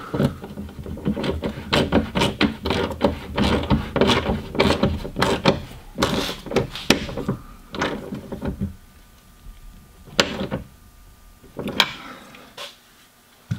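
Socket ratchet tightening the nut on a rear hatch-glass hinge: a quick run of sharp metallic clicks and knocks for about nine seconds, then a few scattered knocks near the end.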